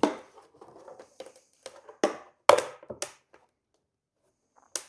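Hands handling a plastic battery case and lifting off its lid: a series of irregular sharp knocks and clicks of plastic, with light rustling between them.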